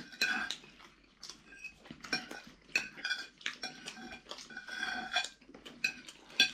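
Metal cutlery clinking and scraping against plates during a meal, in many short, irregular clinks, some with a brief ring.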